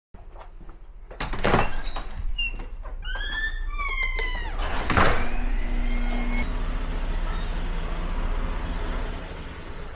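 A garage door opening: squeaks, a heavy thud about halfway in, then the door's motor running steadily.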